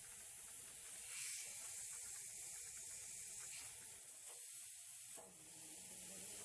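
Compressed air hissing steadily through a pressure washer's pump and hose, blowing the water out of them to winterize against freezing.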